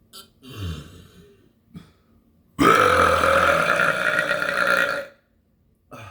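A person burping: a short, lower sound about half a second in, then one long, loud burp lasting about two and a half seconds.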